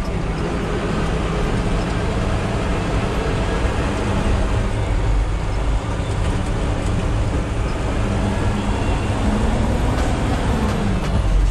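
Yard truck (terminal tractor) engine running steadily, with the engine note rising briefly and falling away near the end.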